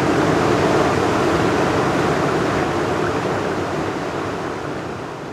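Flowing river water, a steady rushing hiss that slowly fades out near the end.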